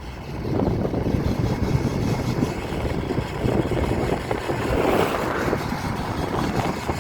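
Car moving slowly with a nasty scraping squeak from one wheel: a lump of dirt caught between the brake disc and its dust shield, rubbing on the spinning disc.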